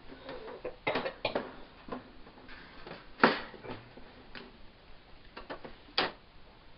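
Clicks and knocks from the lid of a Macintosh Centris 660av's case being handled and fitted back onto the computer. There is a cluster of clicks about a second in, the loudest knock about three seconds in, and another sharp knock near the end.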